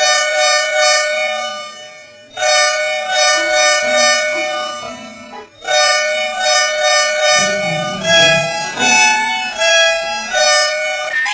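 Volvo bus horn sample edited into a sound variation. It plays a two-note horn chord in three long blasts, each fading away. Past the middle it breaks into shorter blasts that step up and down in pitch like a tune.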